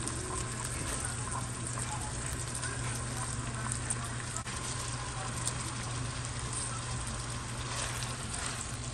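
Pieces of elk meat sizzling as they fry in hot oil in a stainless steel wok, a steady hiss, with a spatula moving through the pan near the end.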